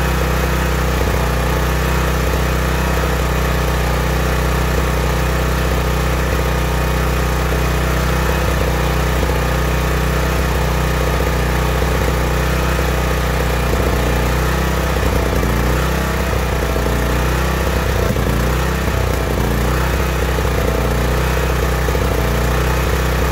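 Single-cylinder OHV small engine on a portable generator, running lean (starving for fuel, with too much air), getting leaner toward very lean by the end. The steady running turns less even in the second half.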